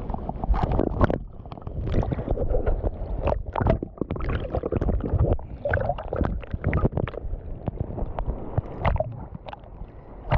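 Shallow seawater churning and sloshing close to the microphone, with many irregular sharp clicks and knocks from handling.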